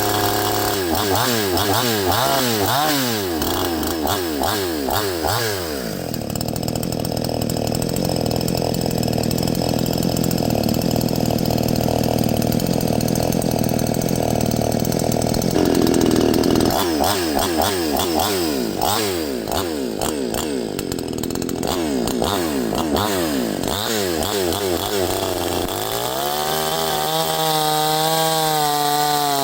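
Neotec NCS6200 62cc two-stroke chainsaw revved up and down again and again, then held at full throttle for about ten seconds, then revved again and dropped to a lower, wavering speed near the end. The chain is mounted backwards, so the saw runs against the oak without cutting.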